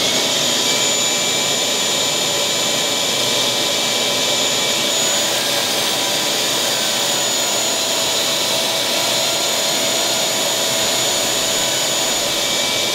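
A vacuum running steadily, its hose held at the bit, while a drill bores a hole up into the underside of a wooden handrail. The sound is an even rushing noise with a constant whine.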